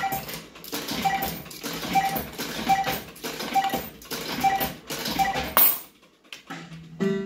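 Bell-Fruit Cash Explosion fruit machine sounding a short electronic beep that repeats about once a second, over clicking and rattling. It stops after a sharp hiss, and the machine goes briefly quiet.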